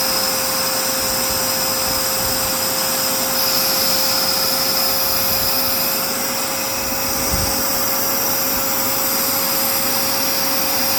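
Dirt Devil Powermax Pet vacuum cleaner running steadily: a constant motor whine over a rushing hiss of air.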